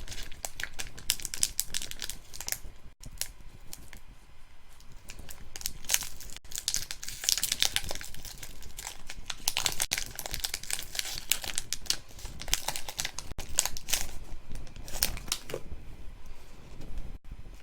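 Foil wrapper of a Pokémon card booster pack being torn open and crinkled by hand: irregular crackling and rustling, densest through the middle and easing off near the end.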